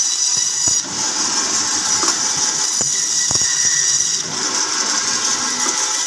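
Meat band saw running with its blade cutting through a frozen beef silverside: a steady high-pitched whine, with a few short knocks along the way.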